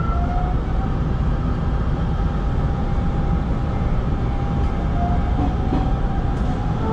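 Hanshin 5500 series electric train running along the track, heard from inside the cab: a steady rolling rumble with a few faint whining tones that drift slowly in pitch.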